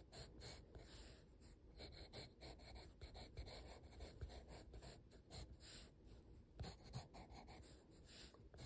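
Coloured pencil scratching across sketchbook paper in short, irregular sketching strokes, faint.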